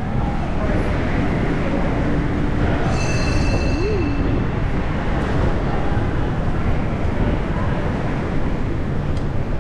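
Steady, loud rumble of wind buffeting the microphone on an open ship deck, with a brief faint high tone about three seconds in.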